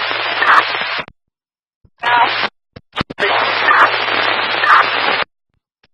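Police scanner radio transmissions that are mostly hiss and static with garbled voice fragments and a low hum. There are three bursts, each ending abruptly when the squelch closes, with short silences and brief key-up clicks between them.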